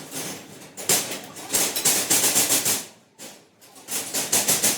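Rapid series of knocks, about five or six a second, in two runs with a short break between them.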